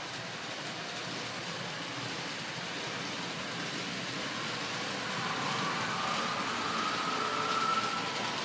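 H0 scale model train running along the layout track: a steady rolling hiss that grows louder over the last few seconds, with a faint whine rising slightly in pitch.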